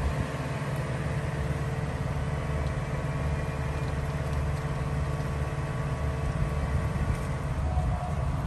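Steady low hum from a DC fast-charging station, its power and cooling equipment running while a car is still charging.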